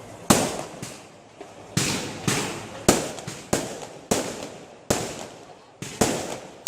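Aerial fireworks shells bursting in a rapid, irregular series, about ten sharp bangs, each trailing off in an echo.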